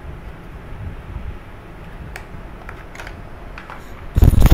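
Light clicks and rustling as a small cardboard box is opened and a USB charging cable is taken out. Near the end comes a sudden, much louder muffled rubbing, like hands handling close to the microphone.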